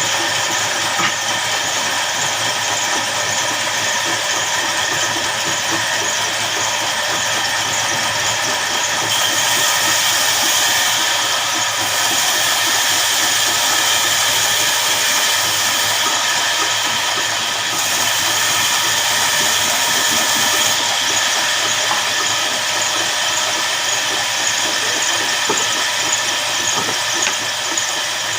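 Horizontal band sawmill running steadily with a constant whine made of many pitched lines, a little louder from about a third of the way in.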